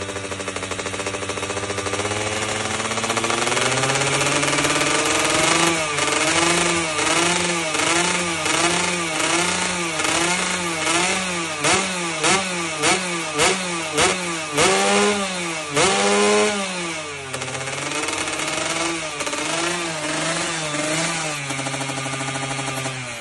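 Racing motorcycle engine on test being revved in repeated throttle blips. The revs climb slowly at first, then rise and fall about twice a second, with sharper, louder blips in the middle and lighter ones near the end.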